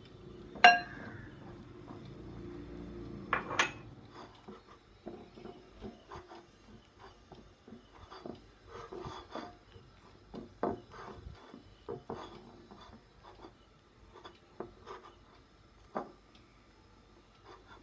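Hands kneading flour and water into dough in a steel bowl. The bowl rings sharply when it is knocked about a second in and again near four seconds, then irregular soft thumps and taps follow as the dough is pressed and turned against the metal.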